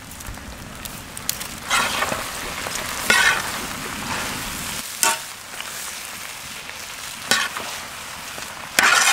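Turkey pieces in masala frying and sizzling in a large wok while a flat metal spatula stirs and scrapes the pan, with a few louder scrapes among the steady sizzle.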